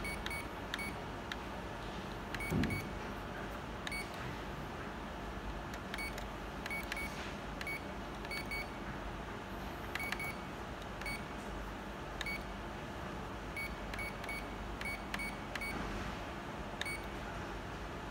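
Ricoh C430/C435DN colour laser printer's control panel giving short high beeps, one for each key press, irregularly and sometimes in quick pairs, as the menus are stepped through. A single dull thump about two and a half seconds in.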